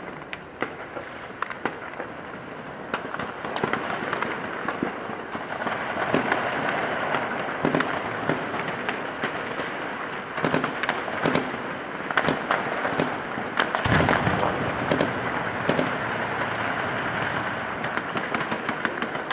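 Heavy gunfire: many irregular shots, some close together in quick bursts, with one heavier, deeper blast about 14 seconds in.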